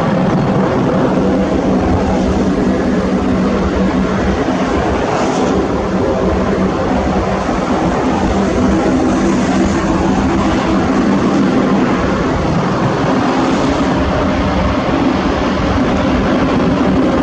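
Lockheed C-130 Hercules military transport's four turboprop engines running close by, a loud, steady hum of several held tones over a rushing noise.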